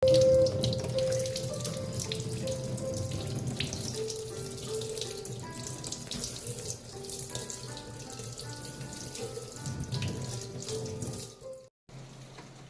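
Steady rain falling, a dense watery hiss, under soft background music with a slow melody of held notes. Both cut off near the end.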